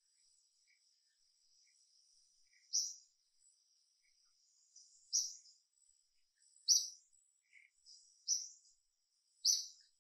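Outdoor ambience of short, high-pitched animal chirps, one every one to two seconds, over a faint steady high whine.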